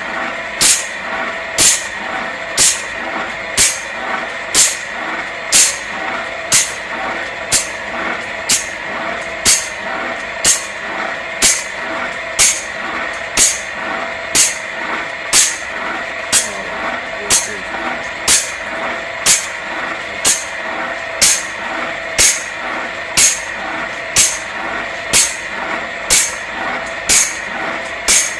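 Industrial machinery running with a steady hum of two held tones, and a short hiss that repeats evenly about once a second.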